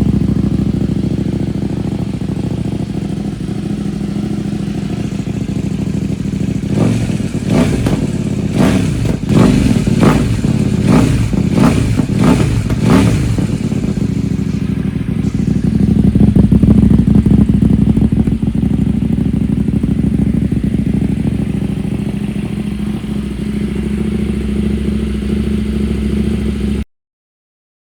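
CFMOTO 800MT's parallel-twin engine running through a Yoshimura full-system exhaust with a freshly repacked silencer, idling with a deep note. Between about 7 and 13 seconds in it is blipped in a quick series of throttle revs, then held at higher revs for a couple of seconds before settling back to idle. The sound cuts off just before the end.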